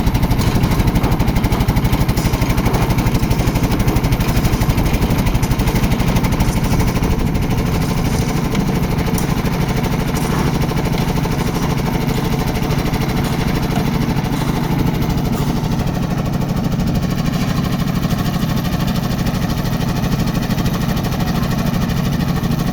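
Concrete mixer machine's engine running steadily with a fast, even chugging, slightly quieter after about seven seconds.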